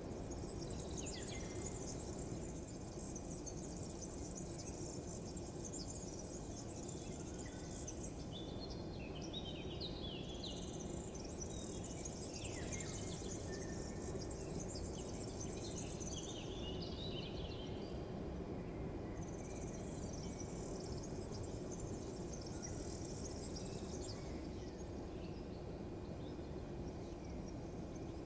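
Outdoor ambience: a steady low rumble with three stretches of high-pitched twittering chirps, each lasting several seconds.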